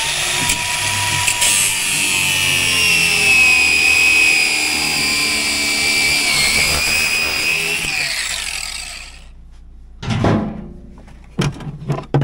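Cordless angle grinder cutting through a rusted steel shaft with a worn-out bearing on it, a steady high whine with a sizzling cutting noise that dips a little under load and winds down about nine seconds in. A few short knocks follow near the end.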